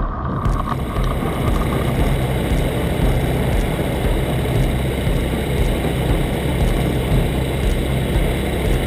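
Aeroprakt A22 Foxbat light aircraft's engine and propeller running at a steady low power while taxiing, a continuous drone under a wide hiss.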